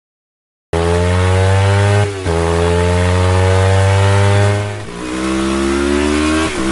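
A high-revving vehicle engine accelerating hard through the gears. It starts abruptly under a second in, its pitch climbs steadily in each gear and drops briefly at each of three upshifts.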